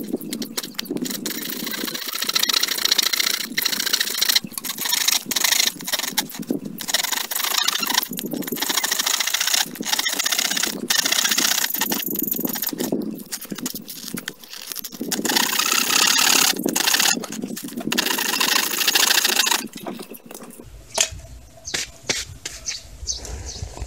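Hand saw cutting through a plastic pipe with repeated back-and-forth rasping strokes. The sawing stops about 20 seconds in.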